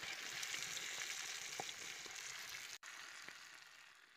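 Whole fish sizzling in oil on a flat pan over a wood fire: a steady frying hiss that fades out near the end.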